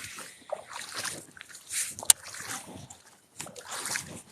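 Legs wading through shallow river water, irregular swishing and sloshing, with a sharp click about two seconds in.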